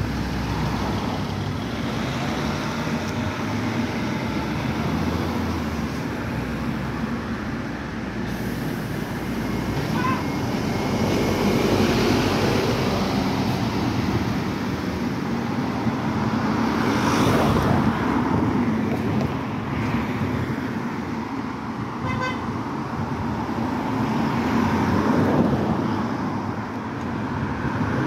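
Road traffic passing, including a Scania N270UD OmniCity double-decker bus driving by and pulling away. The noise swells as vehicles go past, and a short horn toot sounds about three-quarters of the way through.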